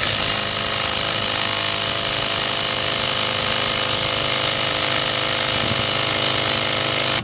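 Bauer brushless 3/8-inch cordless impact wrench, set to its highest of three power levels, hammering on a 21 mm truck lug nut for about seven seconds without breaking it loose. It starts and stops abruptly. The owner blames lug nuts over-torqued by a tire shop's air impact.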